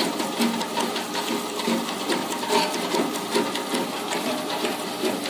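Tabletop wet grinder running, its stone rollers turning through thick soaked kodo millet batter in the steel drum: a steady whir with fast fine clicking.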